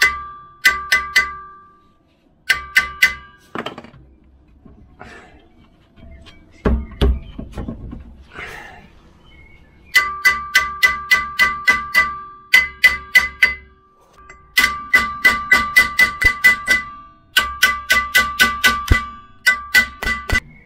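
Repeated hammer blows on the Volvo 940's rear brake disc, knocking the stuck disc to free it from the hub. The strikes come in bursts of about three a second, separated by short pauses, and each blow leaves the disc ringing with a metallic tone. There is one duller thud about seven seconds in.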